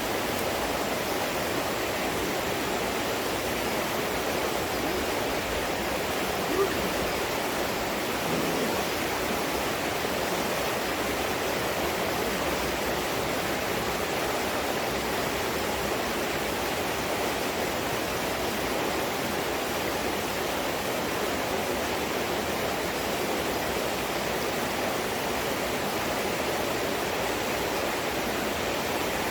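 Water of a stream rushing steadily over rocks, with one faint click about seven seconds in.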